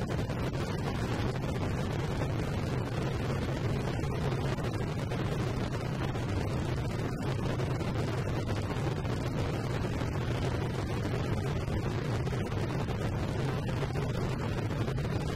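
Motorcycle engines idling, a steady low rumble that does not change.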